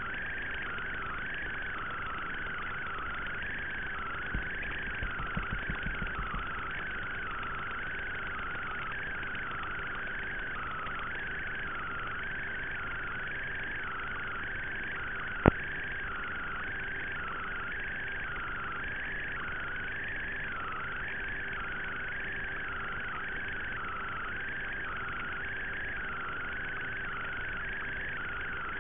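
Steady electronic hiss with a faint hum tone on an analog FPV drone's video-link audio, wavering about once a second, with the motors stopped. A few faint clicks come about four seconds in and one sharp click about halfway through.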